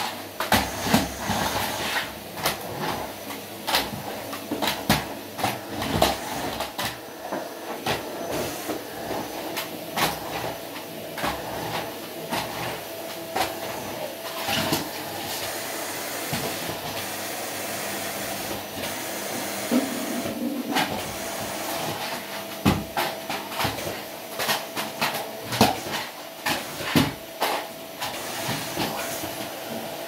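Canister vacuum cleaner running steadily, a constant hiss of suction with a steady motor whine, as its nozzle is pushed over a rug. Frequent short knocks and clacks sound throughout.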